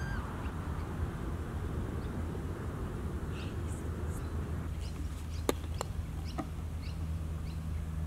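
Outdoor ambience on an open golf course: a steady low wind rumble on the microphone, with birds chirping in short, faint calls now and then. Two sharp clicks come a little past the middle.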